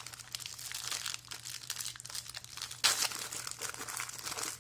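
Plastic packaging around packs of trading cards crinkling and crackling as it is handled and opened, with one sharper, louder crackle about three seconds in.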